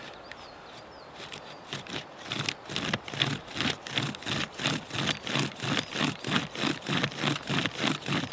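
Bow drill working: the bow's cord turns a wooden spindle back and forth in the fireboard socket, giving a rhythmic scraping squeak with each push and pull of the bow. It begins about a second and a half in and settles into a steady pace of a little over two strokes a second. The strokes are taken slowly to warm the board up before it bites.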